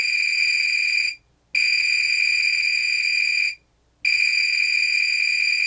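A multimeter's continuity beeper gives a steady high-pitched beep three times, each lasting one to two seconds with short breaks between, as the probes bridge points on the mixer motor's armature windings. Each beep signals an unbroken circuit between the points probed.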